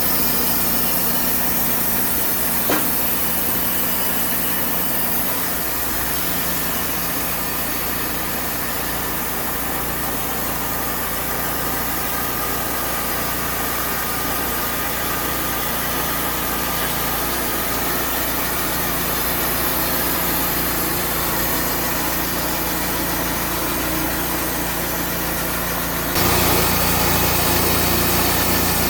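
Portable band sawmill running steadily, its engine and band blade going with a constant hum under a wide mechanical noise. About 26 seconds in, the sound jumps suddenly, louder and with a deeper rumble.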